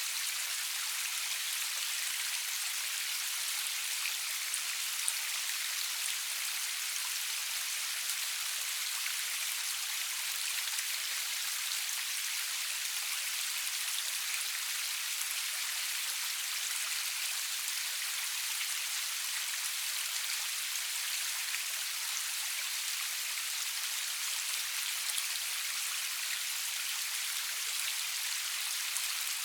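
Steady rain falling, an even hiss of many drops with the occasional sharper drop tick, and no thunder.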